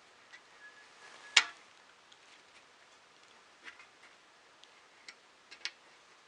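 Irregular sharp clicks and taps of small 3D-printer kit parts being handled and fitted together by hand: one much louder click about a second and a half in, then a few lighter ones.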